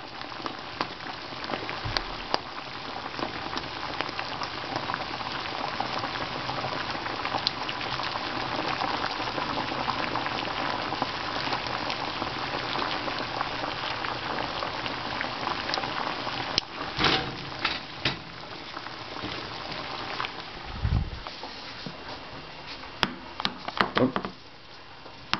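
Saucepan of water at a rolling boil bubbling steadily, the hot water being used to pop the dents out of ping pong balls. A few loud knocks come about 17 seconds in, and a few light clicks near the end.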